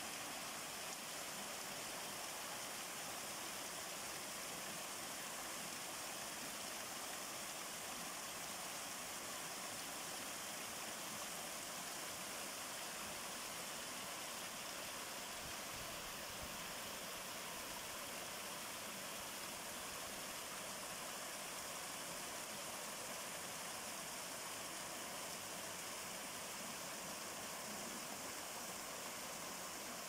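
Garden waterfall pouring steadily down a stepped cascade of stacked stone rocks and splashing into a pond below.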